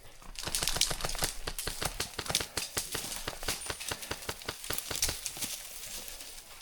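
Footsteps crunching through dry brush and undergrowth: a dense run of sharp, irregular snaps and crackles that thins out near the end.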